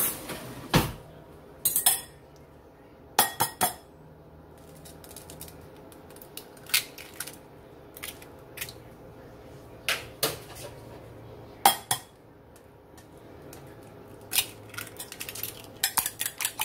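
Scattered sharp taps and knocks as two eggs are cracked into a ceramic bowl with a metal fork in it. Near the end, quick rhythmic clicking of the fork whisking the eggs against the bowl.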